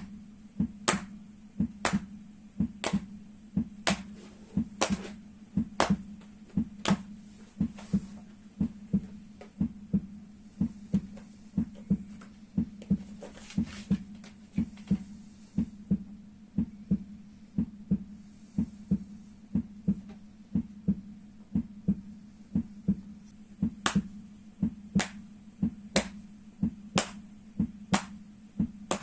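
Rhythmic strikes on the soles of the feet, kept to the beat of a heart: about one sharp hit a second with weaker hits between, softer through the middle. A steady hum runs underneath.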